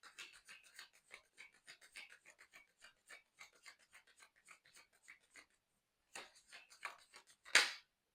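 Tarot cards being shuffled by hand, a quick run of soft flicking clicks several times a second. A few more clicks and one louder slap follow near the end.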